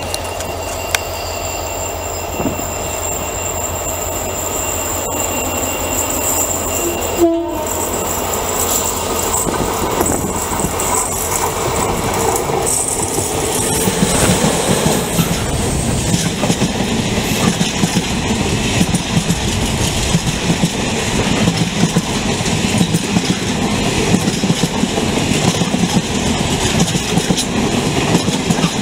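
Freight train locomotive approaching and passing close, its rumble growing louder until it goes by about halfway through. Then the loaded container wagons roll past with wheels clattering over the rail joints.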